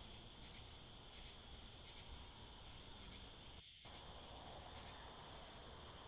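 Near silence, with a faint, steady high chirring in the background. The background briefly drops out a little past halfway through.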